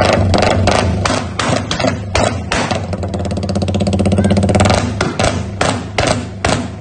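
Suzuki Raider 150 Fi single-cylinder engine running with a racing ECU and blipped on the throttle, its exhaust letting out a long run of sharp, irregular pops and crackles.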